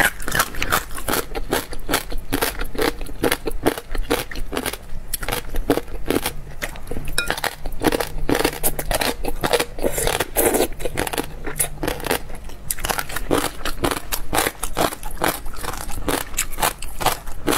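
Close-miked chewing of crisp gongcai (dried celtuce-stem strips), a rapid, continuous run of wet crunches and crackles.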